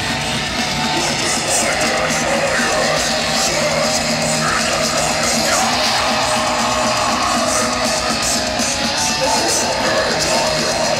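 Loud heavy-metal music with electric guitars.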